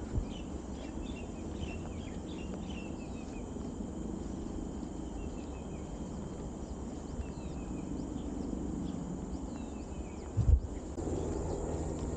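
Tropical forest ambience: birds calling with many short, falling chirps over a steady high insect drone and a low rumble. A single low thump about ten and a half seconds in.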